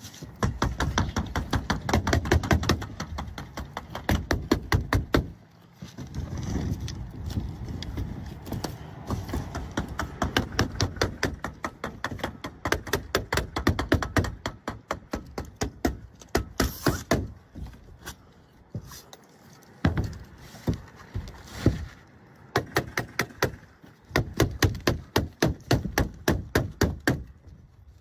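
Asphalt shingles being nailed down on a roof: runs of sharp, rapid nailing strikes, several a second, broken by short pauses while the next shingle is placed.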